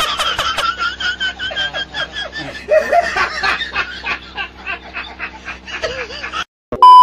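People laughing hard, in quick repeated bursts of snickering and chuckling. The laughter cuts off suddenly about six and a half seconds in, and a loud steady bleep tone starts at the very end.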